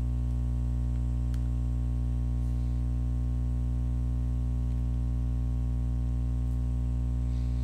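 Steady electrical mains hum, a low buzz with a ladder of overtones, unchanging throughout; one faint click about a second and a half in.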